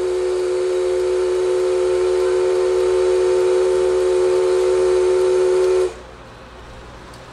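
Steam locomotive whistle giving one long, steady blast of several tones sounding together. It cuts off abruptly about six seconds in.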